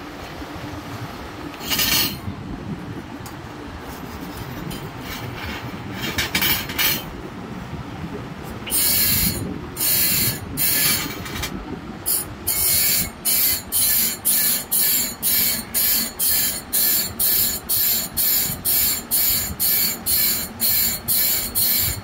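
Band saw blade teeth being sharpened: short rasping strokes of metal on metal, a few irregular ones at first, then from about twelve seconds in a very regular run of about two strokes a second, tooth after tooth.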